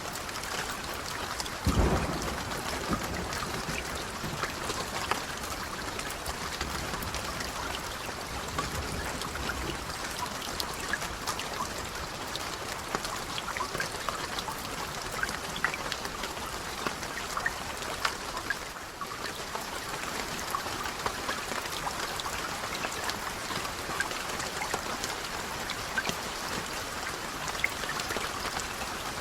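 Steady rain with many separate drops striking close by. About two seconds in, a short, low rumble of thunder rises above the rain.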